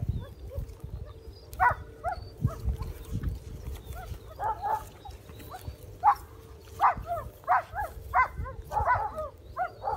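Dog giving repeated short, high whines and yips, coming closer together in the second half.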